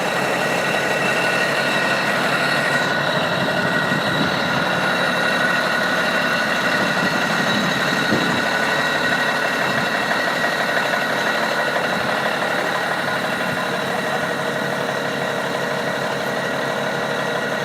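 A machine running steadily, with several constant high whining tones over a dense mechanical noise.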